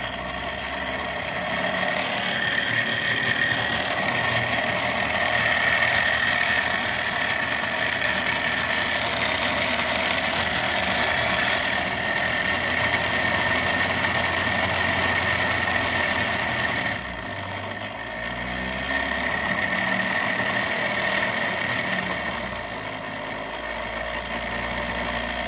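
The 3D-printed magnet rotor of a hall-sensor-triggered pulse motor spinning fast. It runs loud and noisy with a steady high whine, and the sound shifts about two-thirds of the way through as the hall sensor is moved. The builder thinks the rotor might be a little off balance.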